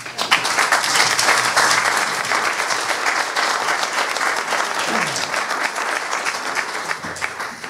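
Audience applauding, a dense patter of many hands clapping that breaks out all at once and dies away near the end.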